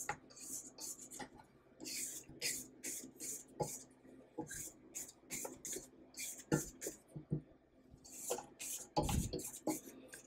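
Silicone spatula scraping butter and sugar off the sides of a stainless steel stand-mixer bowl in short, irregular strokes, about one or two a second. A louder knock comes near the end.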